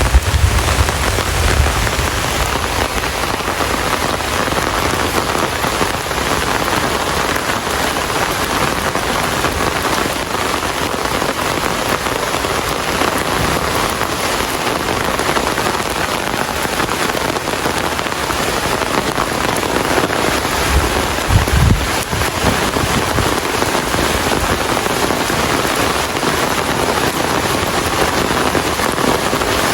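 Steady rain falling and pattering on surfaces. Brief low rumbles come in at the very start and again about 21 seconds in.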